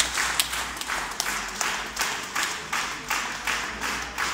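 Concert audience clapping together in a steady rhythm, about two and a half to three claps a second, in a large hall.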